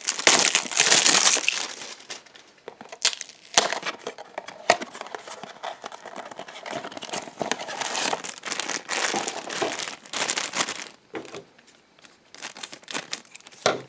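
Crinkling and tearing of a Funko Mystery Minis blind box's packaging opened by hand, in irregular rustling spells with a few sharp clicks.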